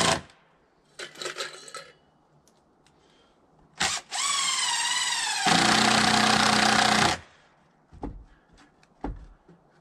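Cordless drill running screws into a wooden boardwalk's hinge. A short burst comes about a second in, then a longer run from about four seconds whose pitch dips and rises before it goes louder and steadier for a second and a half and stops. A few light knocks follow near the end.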